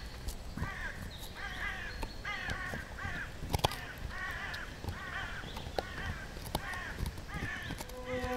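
A bird cawing over and over, a dozen or more short calls in a row. Sharp clicks come between the calls, the loudest about three and a half seconds in, as a dog gnaws a bone.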